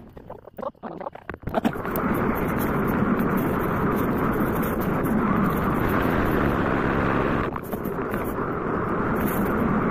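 Off-road motorcycle running and being ridden: after a couple of uneven seconds a loud, steady engine-and-riding noise sets in, dipping briefly near the end.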